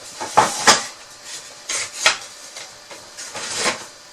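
Thin wooden box pieces being handled and set down: a few light clacks and knocks, with short sliding rubs between them.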